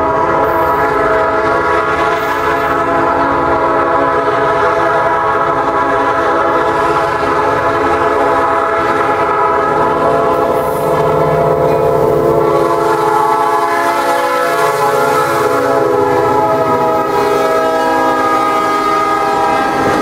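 A Norfolk Southern SD40 diesel locomotive's air horn blowing long, nearly unbroken blasts as a steady chord of several notes, with the rumble of the train beneath it.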